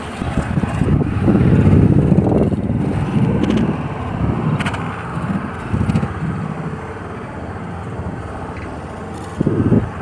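Heavy construction vehicle's engine running, a loud uneven low rumble heard from on board the machine, swelling loudest a second or two in.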